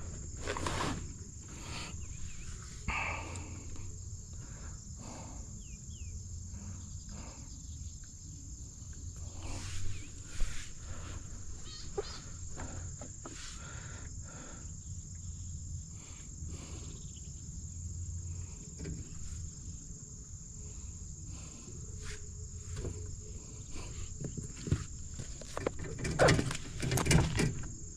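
Insects, crickets or similar, keep up a steady high-pitched drone, with scattered light clicks and knocks of handling that grow busier near the end.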